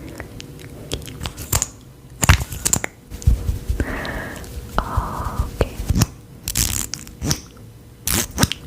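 Close-up crinkling and tearing with a series of sharp cracks and clicks, including two longer rasping tears about four and five seconds in.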